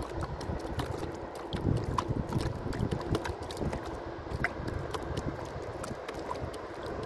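Wind rumbling on the microphone, with a scatter of light, irregular clicks and taps.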